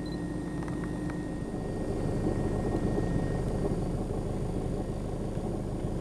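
Four-wheel-drive SUV engine working through deep snow on a climbing track: a steady low drone that grows louder about two seconds in.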